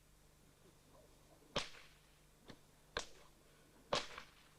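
Whip cracking: three sharp cracks about a second apart, with a fainter crack between the first two.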